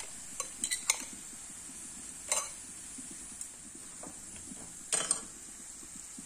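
A few last taps of a fork against a glass bowl of beaten egg, then a faint steady sizzle of diced pancetta frying in a pan. Two short metal clatters break in, the second as tongs dip into the pot of boiling spaghetti.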